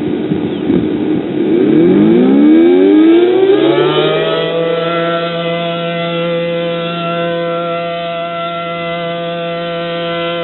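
A siren winding up, rising in pitch over the first few seconds, then holding a steady tone.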